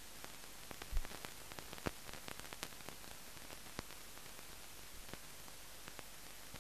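Steady hiss with scattered clicks and pops, the loudest about a second in and another just before two seconds: the empty soundtrack of a silent film transfer, with no recorded sound.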